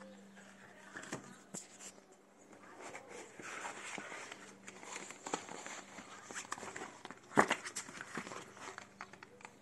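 Cardboard product tags and a thin flexible plastic guard sheet being handled and rustling, with scattered light taps and clicks against a wooden table. About seven and a half seconds in comes one sharp knock, the loudest sound, as something is set down on the table.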